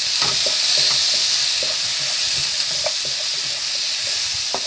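Chopped onions, tomatoes and cashews sizzling in hot oil in a nonstick frying pan while a wooden spatula stirs them. A steady high hiss runs underneath repeated short scrapes and taps of the spatula against the pan.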